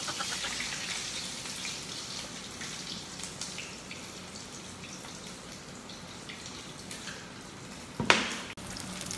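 Fish frying in hot oil in a pan: a steady sizzle with small crackling spatters. A single sharp knock about eight seconds in.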